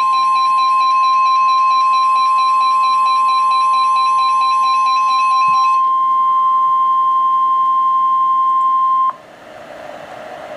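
NOAA Weather Radio 1050 Hz warning alarm tone: one steady electronic tone that cuts off abruptly about nine seconds in. It signals that a warning is about to be broadcast. For roughly the first six seconds a receiver's rapid, warbling alert beeping sounds over it, and after the tone ends only radio hiss remains.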